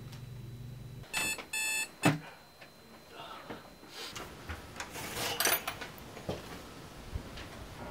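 Electronic alarm clock beeping in two short bursts about a second in, cut off by a thump just after as it is switched off. Then bedclothes rustling with small clicks.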